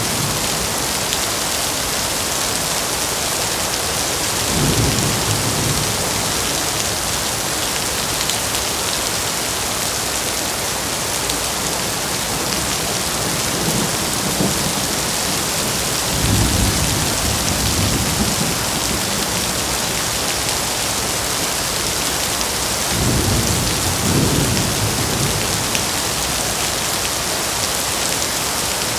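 Heavy rain falling steadily, with low rolls of thunder three times: about five seconds in, a little past the middle, and again near the end.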